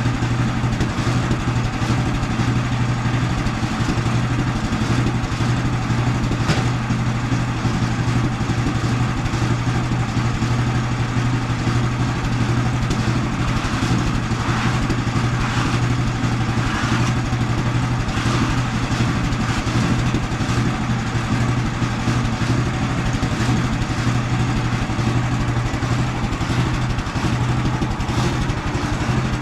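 An engine idling steadily, with a single sharp click about six seconds in and some faint clattering a little past the middle.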